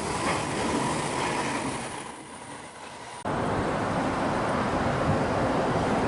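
Train running noise, a steady rumble that dips and then jumps abruptly louder about three seconds in.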